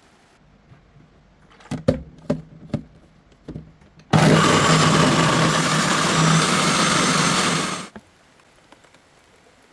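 A few knocks and clicks, then an electric blender runs for about four seconds, blending coconut pieces with water for coconut milk, with a steady motor hum under the chopping noise, and stops abruptly.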